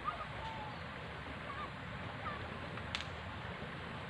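Steady rush of water flowing along a shallow concrete drainage ditch, with a few brief high chirps and a single sharp click about three seconds in.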